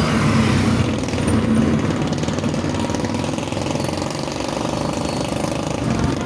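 Electric golf cart travelling: a steady, rattling mechanical running sound, a little louder in the first second.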